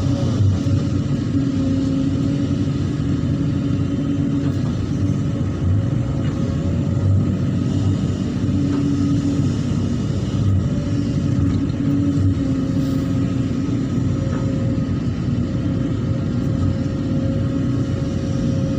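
An engine running steadily, with a wavering hum.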